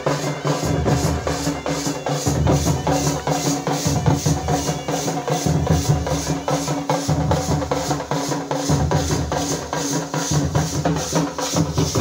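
A group of folk drummers beating barrel drums together in a fast, steady beat, about four strokes a second.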